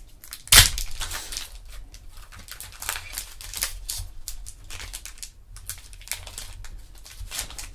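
A foil trading-card pack wrapper is torn open with one sharp rip about half a second in, then crinkles and crackles as the wrapper is peeled back from the cards.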